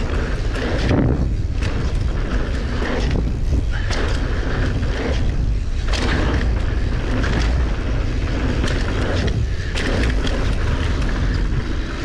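Mountain bike ridden fast down a dirt jump trail: heavy wind buffeting on the microphone, with tyres rolling over dirt and many small knocks and rattles from the bike over bumps and landings.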